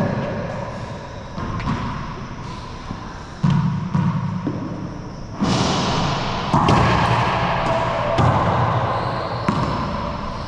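A racquetball rally: the ball is struck by racquets and bangs off the walls and floor of an enclosed court. There is a string of sharp hits a second or two apart, each followed by a long echo.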